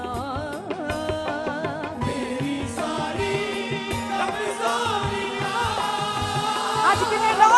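Hindi Christian worship song: sung vocals over instrumental backing with a steady drum beat, growing fuller with several voices from about two seconds in.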